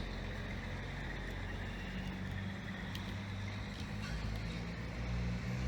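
Steady low hum of a motor vehicle engine running, with street background noise; the engine grows a little louder about two seconds in.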